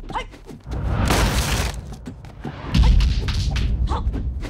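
Kung fu film fight sound effects: whooshing swings and thudding blows over a heavy low rumble, with a loud thump near the end.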